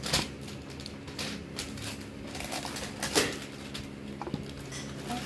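Plastic packaging crinkling and rustling as the wrapped surprise bags are pulled out of a Barbie Color Reveal tube, in short irregular crackles with a louder one about three seconds in, over a faint steady hum.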